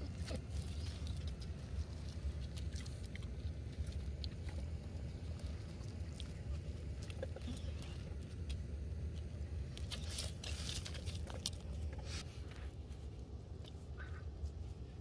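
Pit bull-type dog crunching dry kibble from a metal bowl: irregular short crisp clicks, most of them bunched about ten seconds in, over a steady low rumble.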